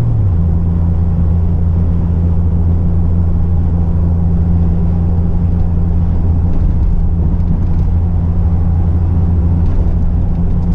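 Steady low rumble of engine and road noise inside a moving pickup truck's cab, changing slightly in pitch just after the start.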